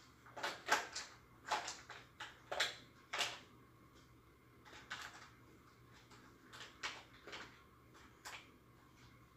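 A wooden spatula stirring and scraping in a metal pan of simmering vegetable curry, a series of short strokes, busiest in the first few seconds. Near the end, the pan's aluminium lid is set back on.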